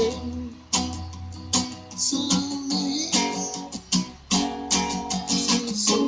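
Steel-string acoustic guitar with new, bright strings, chords strummed in a steady rhythm of about two strokes a second.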